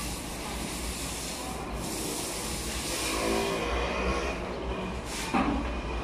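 Paint roller on a long extension pole rolling over a wall or ceiling, a steady rubbing hiss, with a short louder scrape about five seconds in.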